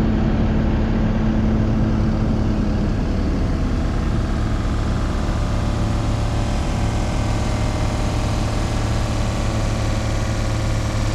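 A vehicle engine running steadily at an even speed, a continuous low drone, with a higher tone that fades out about three seconds in.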